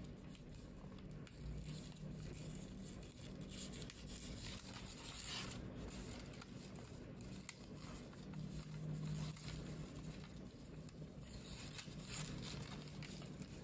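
A sheet of origami paper rustling and crinkling as fingers fold and crease it, with a louder rustle about five seconds in.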